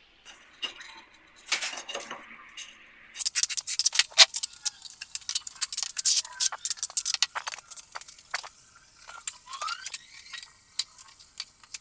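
Hand tools working on aerated concrete blocks during blocklaying: a quiet start, then from about three seconds in a dense run of sharp metallic clicks, clinks and short scrapes, with one brief rising squeak near the end.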